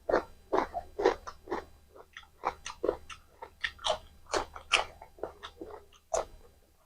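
Close-miked eating sounds: chewing and biting through a mouthful of mutton curry and rice, a quick run of wet smacks and crunches, several a second.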